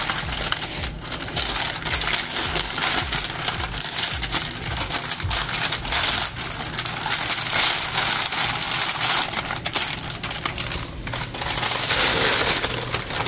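Steady crackling and scraping as roasted red peppers are moved from a baking tray into the soup pot, with many small clicks.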